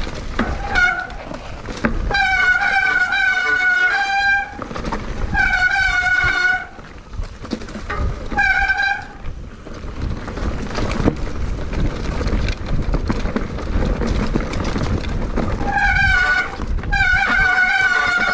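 A horn honking in about six blasts, one of them long, each a steady bright tone. Rushing wind and road noise fill the gaps, with a longer stretch of just that rush in the middle.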